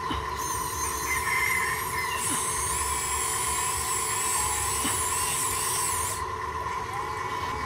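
High electric whine of the small motors in a remote-control construction toy working, wavering in pitch and cutting off about six seconds in.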